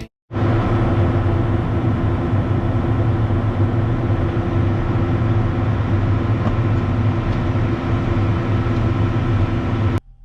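A large engine running steadily at a constant speed, a low, even hum that holds its pitch.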